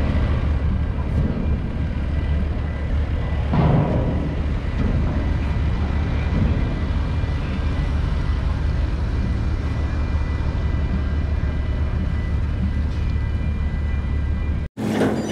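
Cars driving past over a steady low rumble, with one louder pass about four seconds in.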